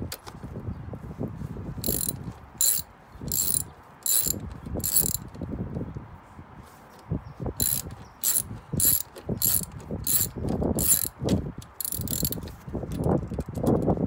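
Socket ratchet wrench clicking in two runs of short strokes, about two a second, as it turns the bolts holding a Honda CR-V rear seat latch.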